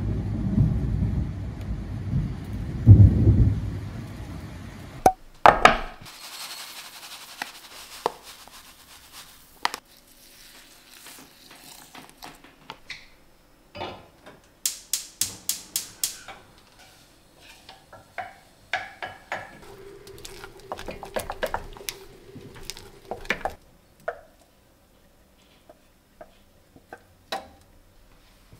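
A loud low rumble of thunder and rain for the first five seconds. Then kitchen sounds at a gas stove: knocks of a saucepan and utensils, and a quick run of about eight sharp clicks.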